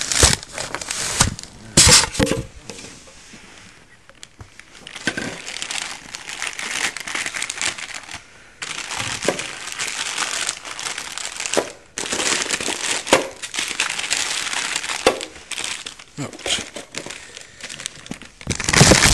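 Packaging around a car amplifier crinkling and rustling as it is handled and unwrapped, in irregular stretches with a few short pauses and sharp crackles.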